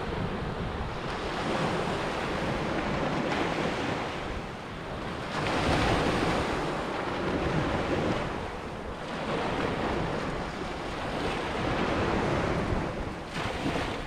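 Sea waves breaking and washing up a sandy beach. The surf swells and eases every few seconds, with one louder break about halfway through.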